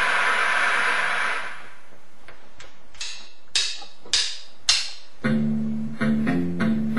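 A steady hiss fades away over the first second and a half. Then three sharp clicks, evenly spaced, count in the song, and about five seconds in an electric bass guitar and drum kit start playing together.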